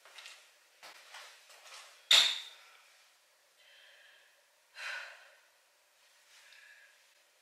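Sneakers stepping and stomping on a hardwood floor during an aerobic home workout, with one loud sharp stomp about two seconds in and a few lighter steps, mixed with the exerciser's breathing.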